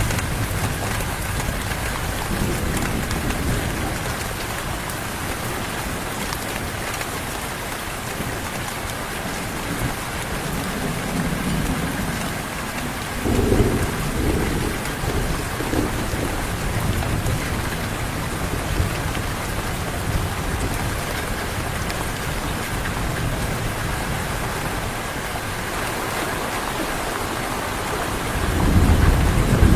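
Steady heavy rain with thunder rumbling, one roll around the middle and another building near the end.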